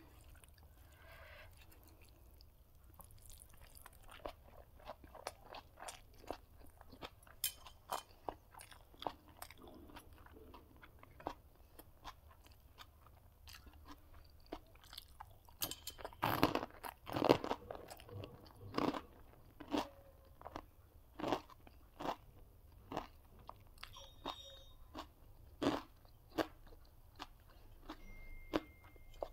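Close-miked eating: a person chewing and crunching food in a string of short crisp crunches and mouth sounds, loudest in a burst a little past halfway.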